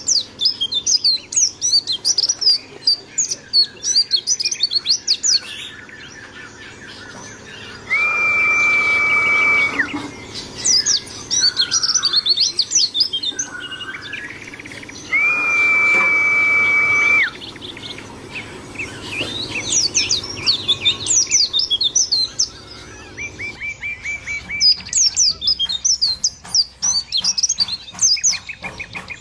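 White-eyes (pleci) singing: quick, high twittering phrases in repeated runs with short pauses. Twice, about a quarter and about halfway through, a loud steady whistle-like tone holds for roughly two seconds.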